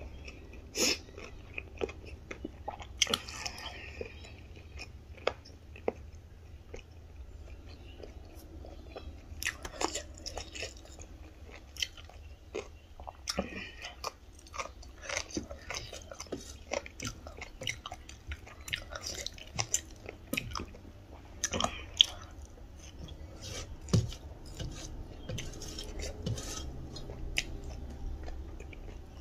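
Close-miked chewing of rice and pork, with many short wet clicks and lip smacks, and now and then fingers squishing and mixing rice on a steel plate.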